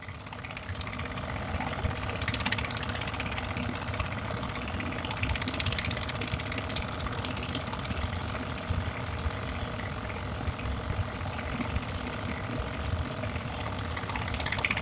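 An engine running steadily, the kind of suction-pump engine the sand miners use on the river.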